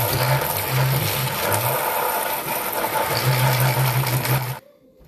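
Tap water pouring onto cabbage leaves in a plastic colander in a stainless steel sink, a loud steady splashing rush with a low hum under it. It cuts off suddenly about four and a half seconds in.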